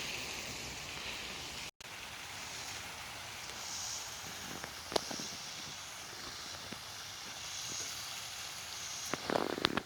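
Steady outdoor background hiss, with a brief dropout about two seconds in and a few light clicks near the middle and end.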